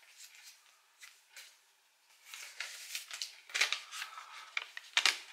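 A folded paper slip being unfolded by hand: crinkling and rustling paper, sparse at first and busier from about halfway through.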